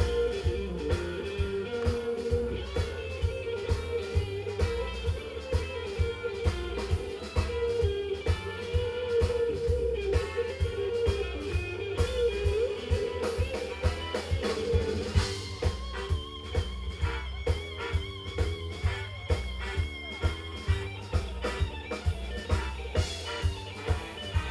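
Live blues band playing an instrumental passage: an electric guitar lead line over bass, a drum kit keeping a steady beat about two hits a second, and keyboard.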